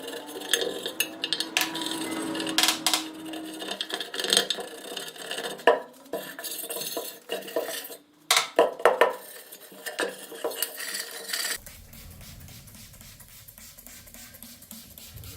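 Metal parts and tools clinking and clattering in irregular knocks and taps. About three-quarters of the way through the clatter stops abruptly, leaving a quieter low hum.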